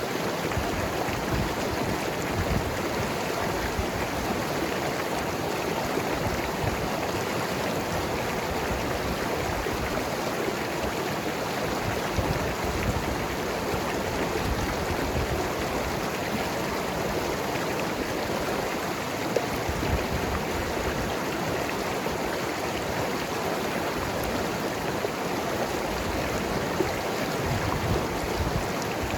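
Mountain river flowing and gurgling over rocks, a steady, unbroken rush of water.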